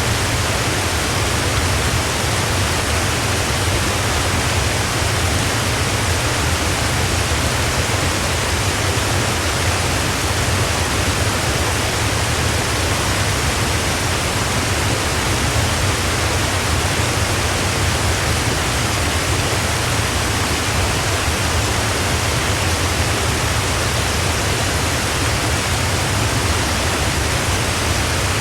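Waterfall: steady, unbroken rushing of falling water with a low rumble underneath, unchanging throughout.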